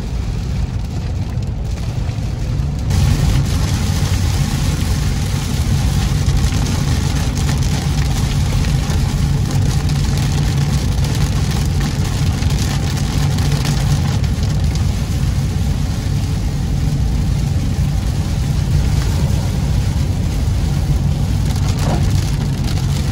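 Car driving in heavy rain, heard from inside the cabin: a steady low engine and road drone with the hiss of rain and wet tyres, which gets louder about three seconds in.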